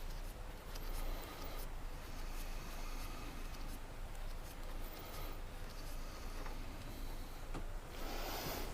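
Faint rubbing and small handling noises over a low steady hum, as an oil dipstick is wiped and put back to check the level.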